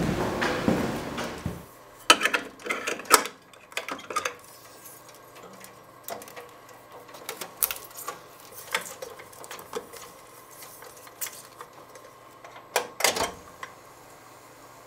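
Reel-to-reel tape recorder being handled: a string of irregular mechanical clicks and knocks as the deck is set up by hand. It follows a louder, even noise that cuts off suddenly about a second and a half in.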